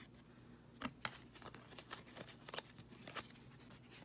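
Upper Deck hockey cards being flipped through by hand, one slid behind another: an irregular run of soft papery flicks and slides, a couple a little sharper about a second in.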